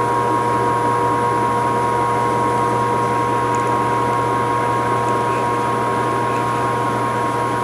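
Vertical-blade traveling-table roll-cutting bandsaw running steadily at speed, a constant hum with a steady whine, its blade turning free and not yet cutting the material.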